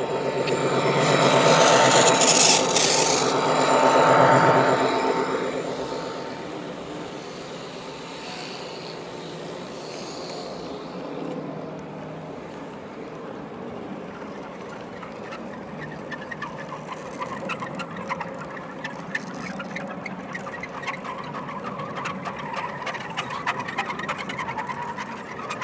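A G scale model diesel locomotive passes close by, loudest in the first few seconds. A string of model covered hopper cars follows, rolling past with a steady high-pitched wheel squeal and many sharp clicks from the wheels on the rail joints.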